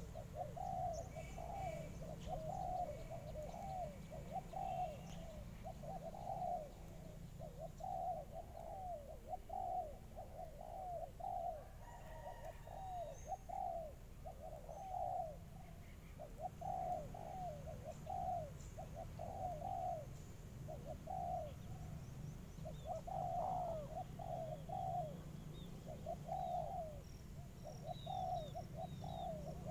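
Dove cooing over and over in short repeated phrases, with small birds chirping faintly in the background.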